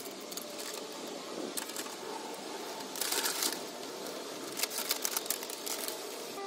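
Protective paper masking being peeled off a 1-inch cast acrylic sheet and bunched up, crackling and rustling in two louder spells, about three seconds in and again near five seconds.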